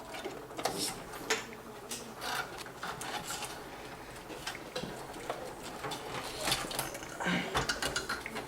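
Irregular small clicks, taps and rustles of fan cables and plastic connectors being handled and plugged in inside a computer case.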